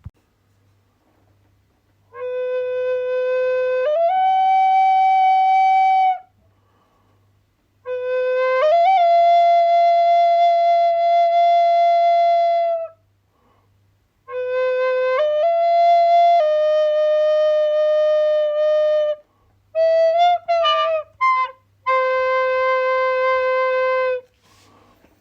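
A solo flute playing slow, long held notes in five phrases with short pauses between them. Each phrase steps or slides up from its low note, and a quick run of short notes comes before a final held note.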